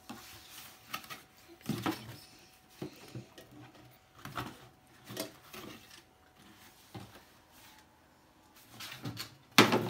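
A cardboard subscription box being handled, its flaps knocking and scuffing in irregular bursts, with a loud knock near the end.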